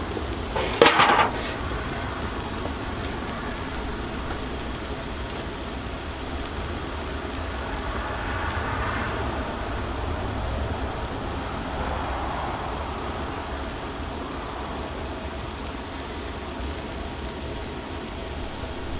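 Sweet potato slices sizzling in butter on a Blackstone flat-top griddle: a steady crackling hiss with a low rumble beneath it. A short loud knock about a second in.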